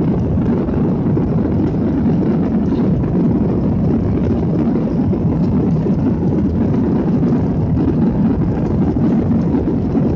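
Jet airliner's engines and airflow heard inside the passenger cabin during takeoff: a steady, low, even noise with no breaks.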